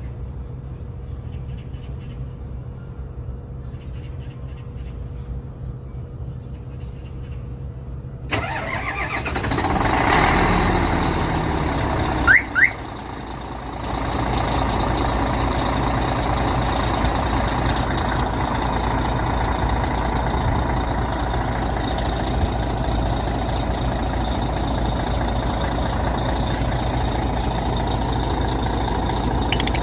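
Hyundai Xcient truck's diesel engine being remote-started: about eight seconds in a louder cranking-and-catching sound starts and swells, two short chirps from the aftermarket alarm unit sound a little past twelve seconds, and from about fourteen seconds the engine runs at a steady idle.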